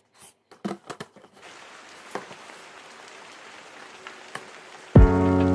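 A few sharp clicks and knocks, then a steady hiss like rain. About five seconds in, loud music with sustained pitched tones starts abruptly.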